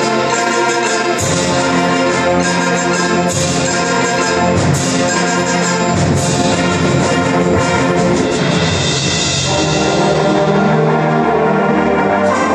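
Student concert band playing a loud, brass-heavy passage at a very fast tempo: full sustained chords from winds and brass, punctuated by sharp percussion hits every second or two.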